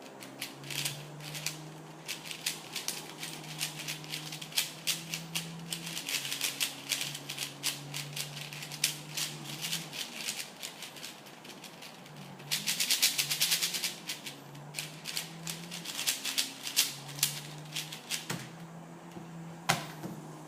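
4x4x4 Rubik's Revenge speedcube being turned fast: rapid irregular plastic clicking of layer turns, with a dense flurry of turns a little past the middle.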